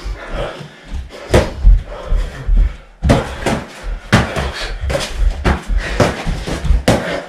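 Boxing gloves landing punches in an irregular run of thuds and slaps, a few at first and then coming thick and fast from about three seconds in.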